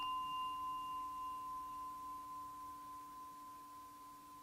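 Small Buddhist bowl bell ringing out after a single strike, in one long, slowly fading tone with a lower hum beneath it. Its higher overtones die away in the first second or two, leaving one clear, steady pitch.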